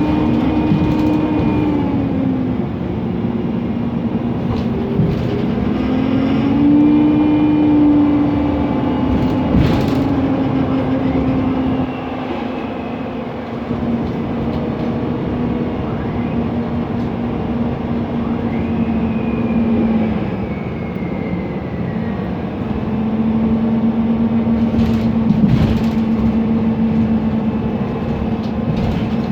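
Mercedes-Benz Conecto NGT city bus's CNG engine and noisy cooling fan running while the bus drives. The drone's pitch rises and falls several times as the bus pulls away and eases off, with a couple of short knocks.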